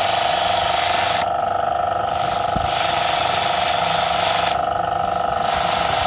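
Power ratchet spinning bolts on the top of a Toyota Corolla GLI cylinder head, where the camshaft caps are being worked on for a tappet adjustment. It runs in three spells of one to two and a half seconds, with short pauses between them.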